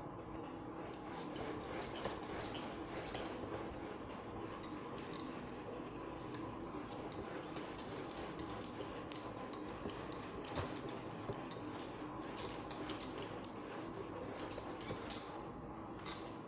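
Whiteboard being wiped clean with a duster: irregular rubbing and scuffing strokes across the board, some sharper than others.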